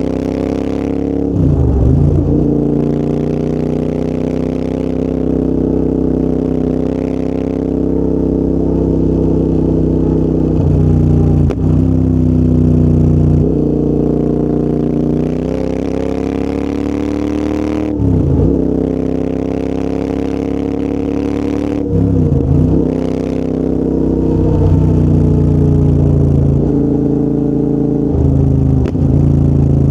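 Royal Enfield Interceptor 650's 648 cc parallel-twin engine running through a full TEC exhaust system while the bike is ridden. The engine pitch holds fairly steady but drops sharply and climbs back about five times.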